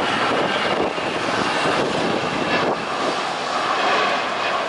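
Jet engines of Airbus A320 airliners, a steady loud rushing noise, as one climbs out after takeoff and another rolls along the runway.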